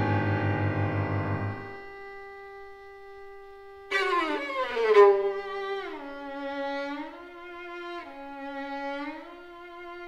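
Bowed strings playing, led by a violin. A fuller passage with low notes fades out in the first two seconds, leaving one held note. About four seconds in the violin comes back with a downward slide and then swoops back and forth between two notes.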